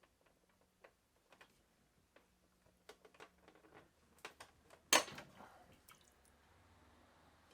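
Scattered light clicks and taps of hand work on motorcycle parts and tools, with one louder sharp clack about five seconds in.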